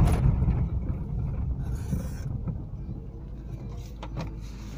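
Low rumble of a vehicle driving on a wet, debris-strewn road, heard from inside the cabin. It is loudest at the start and eases off, with a brief hiss about two seconds in.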